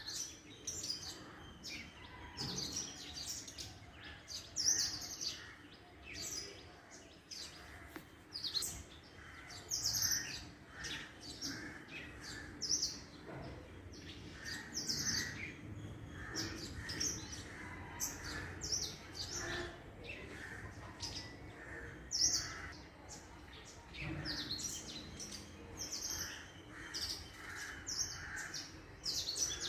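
Several small birds chirping and singing, with many quick high chirps and trills and, underneath, softer repeated lower notes.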